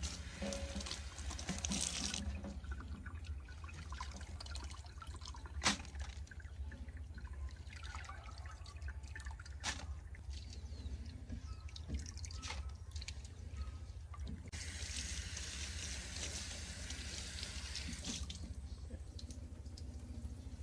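Kitchen tap running into a stainless-steel sink and splashing over a woven bamboo sticky-rice steaming basket for the first couple of seconds, then running again for about four seconds near the end. In between there are drips and a few sharp knocks.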